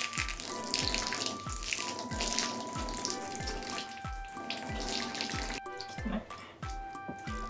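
Background music with a steady kick-drum beat, about two beats a second, and held synth notes, over the hiss of running water.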